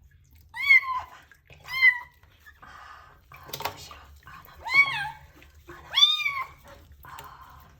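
A small kitten meowing four times in loud, high-pitched cries while being bathed in warm water, with water splashing between the cries; the crying shows her distress at the bath.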